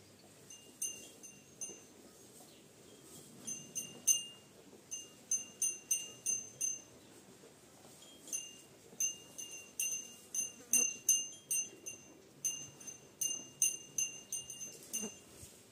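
Small metal bell, such as a cattle neck bell, clinking irregularly in quick clusters of strikes as feeding cattle move their heads. Each clink rings at the same pitch and dies away quickly. It begins about a second in and grows busier from about three and a half seconds on.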